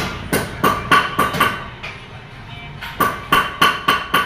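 A hammer striking a metal part, each blow ringing with the same metallic tone. Six quick blows about three a second, a pause of about a second and a half, then five more.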